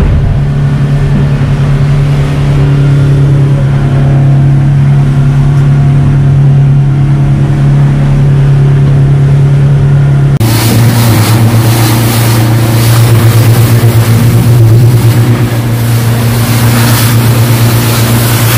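115 hp Yamaha outboard running steadily at cruising speed, heard as a constant low drone from inside the boat's pilothouse. About ten seconds in the engine note drops slightly and a loud rushing hiss of water and wind joins it as the hull punches through the chop.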